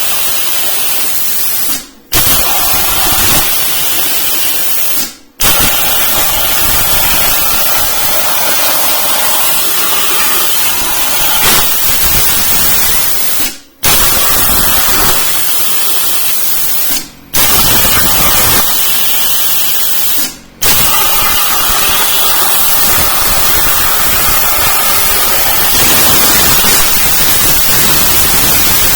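CNC plasma cutter torch cutting 12-gauge steel sheet: a loud, steady hiss of the arc and air jet that cuts out briefly five times as the torch shuts off between cuts and fires again.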